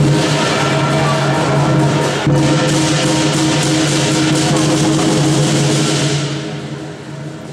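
Live lion dance percussion: a large Chinese drum beating densely with clashing cymbals and a ringing gong. The music quietens about six seconds in.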